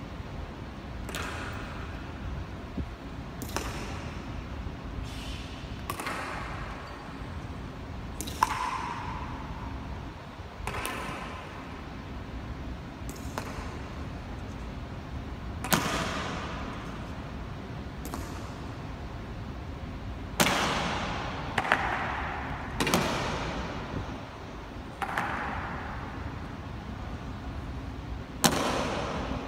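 Ceremonial honor guard's boot heels striking a stone floor in slow, spaced marching steps, every one to three seconds, each strike ringing out with a long echo in the stone hall; three come in quicker succession about two-thirds of the way in.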